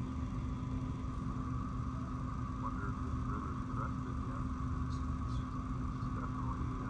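Steady low rumble of a vehicle running, with a constant hum over it.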